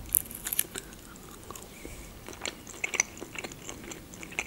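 Close-miked mouth sounds of a person biting and chewing soft processed cheese, with sharp clicks and crackles scattered through, some near the start that fit its foil wrapper being handled.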